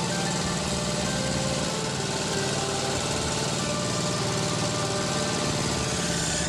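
Small engine of an old walk-behind hand tractor running steadily with fast, even chugging.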